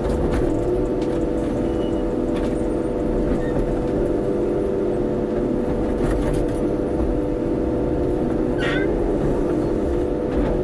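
Kobelco excavator's diesel engine running steadily under work, a constant hum with a few faint clicks and knocks.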